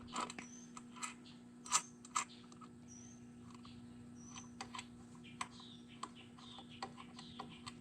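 Irregular light metallic clicks and taps of a wrench being worked on a tight 8 mm nut, with a few faint squeaks, as the nut is loosened.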